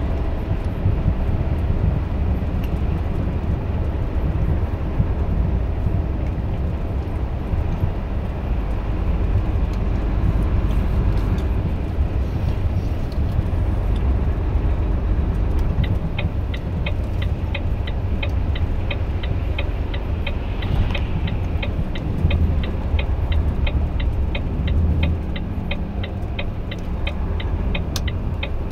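Volvo FH13 500 truck's 13-litre straight-six diesel and tyre noise as a steady low rumble inside the cab. About halfway through, the turn-signal indicator starts ticking, about three clicks a second.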